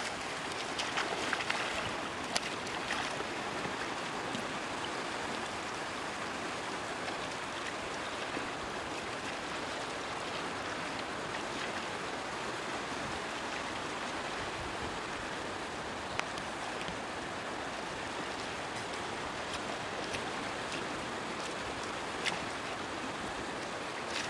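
Shallow seawater at the shoreline, steadily washing and sloshing around a fisherman's legs and a stake net as he scoops out the catch, with livelier splashing in the first couple of seconds. A few short sharp taps stand out, once early, then twice near the end.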